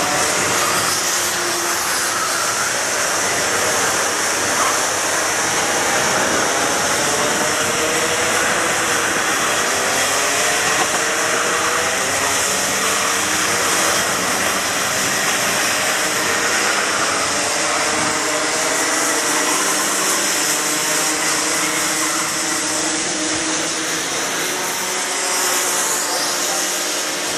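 A pack of racing karts' two-stroke engines buzzing around the circuit. Many engines overlap, their pitches rising and falling as the drivers accelerate and lift through the corners.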